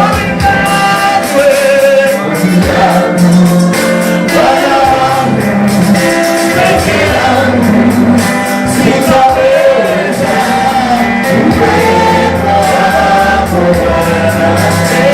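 Gospel music: singing over a bass line and a steady beat.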